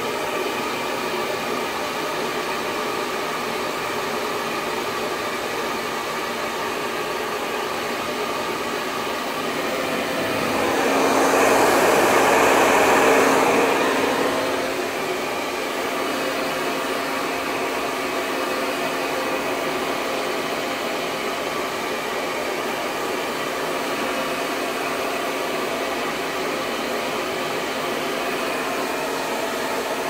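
Hand-held blow dryer running continuously with a steady whir of fan and motor, swelling louder for a few seconds around the middle before settling back to its earlier level.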